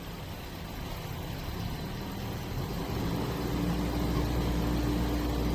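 An engine running steadily and growing gradually louder, with a steady hum joining about three seconds in.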